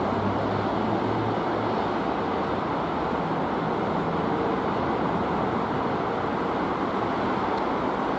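Wuppertal Schwebebahn suspension-railway car running along its overhead steel track, a steady even running noise with no sudden changes.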